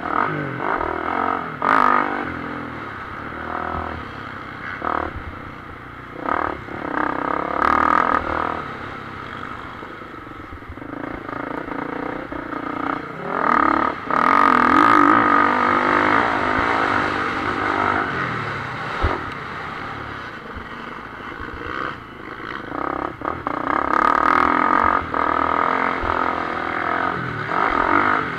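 Motocross dirt bike engine heard from on board, revving up and down with the throttle, with several brief clattering knocks from the bike over the rough track.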